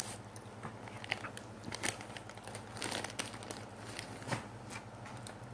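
A dog chewing and crunching a dry biscuit: scattered, irregular crisp cracks.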